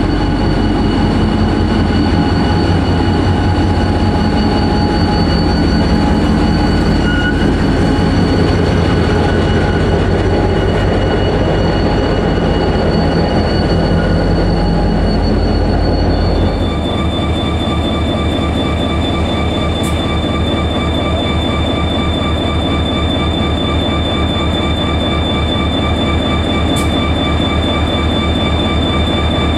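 NIR 111 Class diesel locomotive's EMD two-stroke diesel engine running at low revs as it moves slowly through the station: a steady deep throb with a few steady tones over it. About halfway through the sound changes abruptly to the locomotive standing at idle, a slightly quieter throb with a steady high whine.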